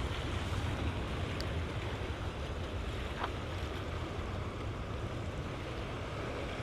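Steady wash of ocean surf and wind, with a low rumble of wind on the microphone.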